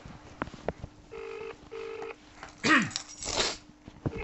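British-style telephone ringing tone heard down the line while the call waits to be answered: a double ring of two short buzzes about a second in, and the next double ring beginning near the end. Between them comes a brief, louder noisy sound with a falling pitch, which is the loudest thing heard.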